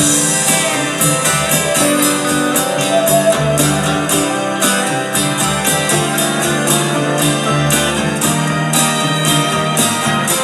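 Rock music playing without vocals: guitars over a steady beat, with a hi-hat ticking evenly throughout.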